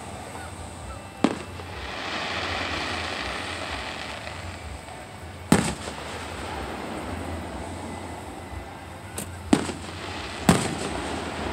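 Aerial firework shells bursting: sharp bangs about a second in, again mid-way, and two more a second apart near the end, with a smaller pop just before them. A hiss follows the first bang.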